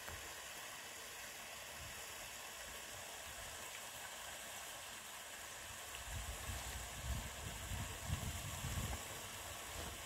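Quiet outdoor ambience at the water's edge: a steady faint hiss, joined about six seconds in by irregular low rumbling on the microphone.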